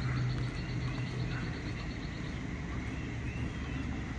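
Outdoor ambience: a low, steady motor hum with a fast, even high-pitched chirping, like insects, over it.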